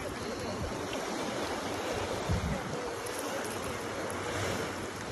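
Surf washing on the shore, a steady rushing with wind on the microphone; a brief low thump a little over two seconds in.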